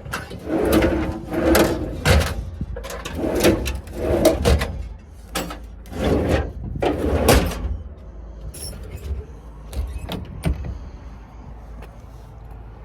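Doors on a service truck being worked: a run of about seven rattling, sliding strokes over the first seven seconds or so, then a few lighter clicks.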